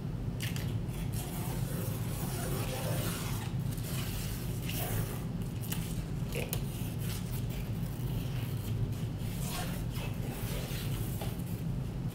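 Protective plastic tape being peeled and rubbed off a TV's bezel: intermittent scratchy peeling and rustling with a few sharp ticks, over a steady low hum.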